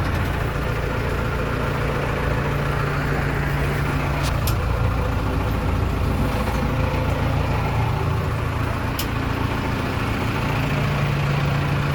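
Case 580 Super M backhoe's diesel engine idling steadily, with a couple of faint ticks about four and nine seconds in.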